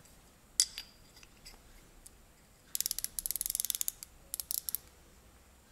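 Micrometer ratchet stop clicking as the thimble is turned to close the spindle on a ground steel parallel; the clicks mean the spindle has seated on the part at measuring pressure. One sharp click comes first, then a fast run of clicks for over a second and a shorter run just after.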